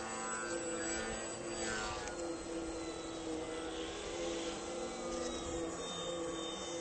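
Electric motor and propeller of an RC aerobatic plane in flight: a steady whining drone that drifts slightly in pitch as the throttle changes.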